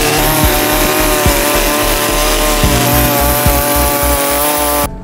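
Stihl MS 180 two-stroke chainsaw running at high revs as its bar carves into wood, cutting off suddenly near the end. A steady beat of background music runs underneath.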